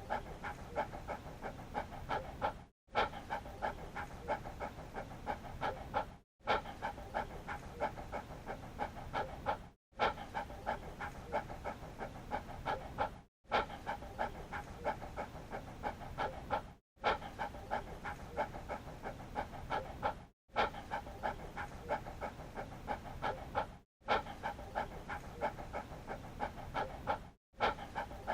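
Dog panting in quick, even breaths. A clip of about three and a half seconds repeats over and over, with a brief silent break between repeats.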